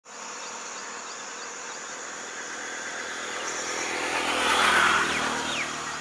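A vehicle passing, swelling to its loudest about three-quarters of the way through and then fading, over a steady high buzz of insects, with a couple of faint bird chirps near the end.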